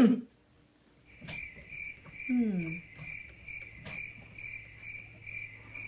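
Crickets chirping as an edited-in sound effect: a steady high trill that pulses about twice a second, starting about a second in. A brief falling hum from a person's voice comes about two seconds in.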